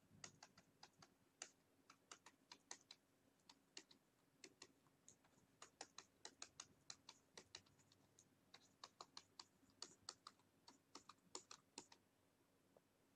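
Faint, quick clicks of a computer mouse button, several a second in uneven runs, as each stroke of hand-drawn lettering is pressed and released. They stop near the end.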